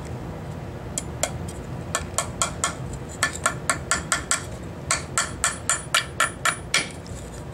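Hammer driving small nails into the joints of a wooden beehive frame: a couple of light taps about a second in, then two quick runs of strikes at about four a second.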